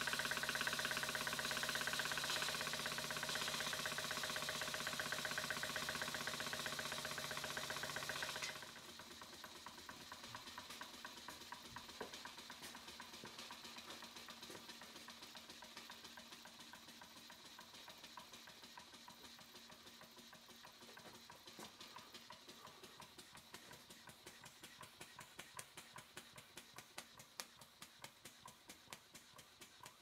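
Model steam beam engine running with a regular light ticking from its exhaust beats and moving parts. For the first eight seconds or so a loud steady hiss with a hum covers it, then cuts off suddenly. After that the engine's ticking is heard alone, gradually getting quieter.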